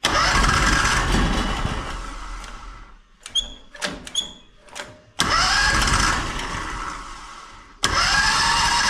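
670cc Predator V-twin engine being cranked on its electric starter in three tries, each opening with a rising whine, with a few short clicks between the first two. This is a first start with the fuel pump still priming the carburettor, so it takes a while to catch. The third try runs on steadily.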